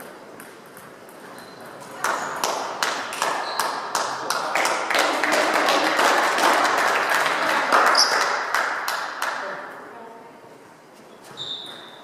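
Spectators clapping and cheering for several seconds; it swells about two seconds in and dies away by about ten seconds. Light pings of a table tennis ball can be heard around it.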